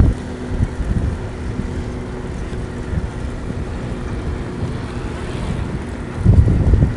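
Wind rushing over the microphone of a moving bicycle ride, a steady low rumble with stronger gusts at the start and again near the end.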